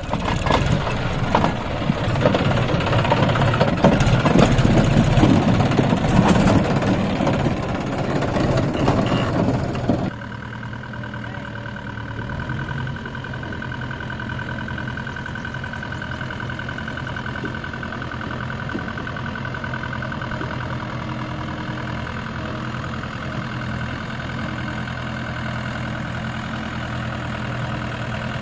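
For about the first ten seconds there is a loud, dense intro sound effect. It cuts off suddenly, and a Mahindra 575 DI tractor's four-cylinder diesel engine runs steadily at low revs while it slowly pulls a fully loaded sugarcane trolley.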